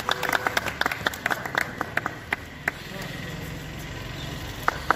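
A small group clapping unevenly by hand for about two and a half seconds, the claps thinning out, during a garlanding. Then a steady low hum, with two last claps near the end.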